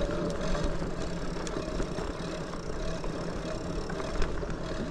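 Lectric XPeak 2.0 electric bike rolling along a dirt trail: a steady hum from the hub motor under wind rumble on the microphone, with scattered small clicks and rattles from the tires and frame.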